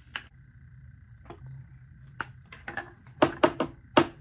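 Makeup cases and containers being handled: a run of sharp clicks and taps, the loudest three close together near the end, over a faint steady whine.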